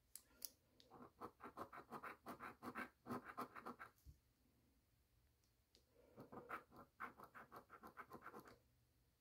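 Soft rasping of a coin scratching the latex coating off a $5 Ohio Lottery scratch-off ticket, in two bouts of quick back-and-forth strokes, several a second, with a pause of about two seconds between them.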